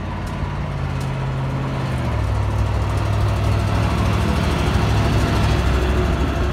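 Diesel engine of a large multi-axle AR-1200M mobile crane truck driving past, growing louder as it approaches. Its engine note drops about two seconds in.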